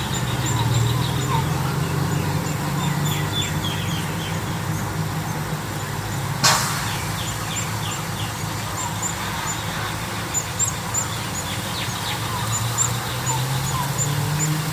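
Small birds chirping and trilling in short high calls over a low steady hum, with one sharp click about six and a half seconds in.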